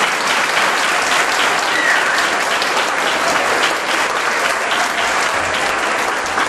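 Audience applauding steadily: dense, continuous clapping from many hands.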